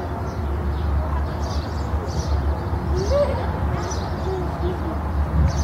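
Outdoor ambience: a steady low rumble with a few faint, short calls that rise and fall in pitch, the clearest about three seconds in.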